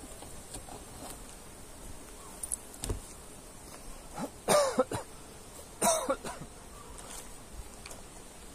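A person coughing twice, about a second and a half apart, after a couple of light clicks.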